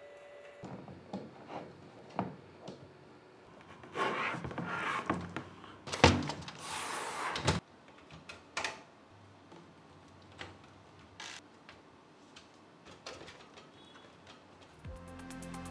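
Handling noises from assembling a desktop PC: scattered clicks and scrapes of a screwdriver and hands working screws into a metal case, with a sharp knock about six seconds in followed by a second or so of scraping. Music comes in near the end.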